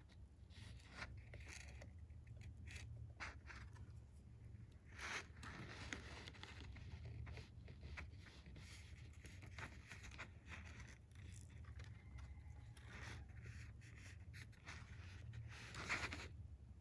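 Faint, uneven scratchy rubbing and small clicks of fingers handling nylon monofilament fishing line while wrapping a uni knot, the loudest scrape near the end, over a steady low hum.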